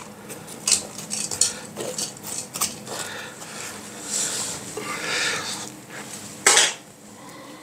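A metal spoon scraping and knocking at a hardened salt crust in a cooking pot: a run of short scrapes and clicks, with one louder knock about six and a half seconds in.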